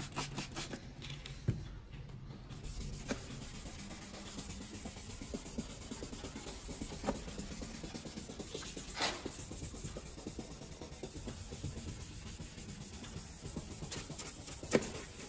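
Wet 600-grit sandpaper rubbed by hand back and forth over a plastic car tail-light lens: a soft, steady scratchy rubbing, with a few faint clicks.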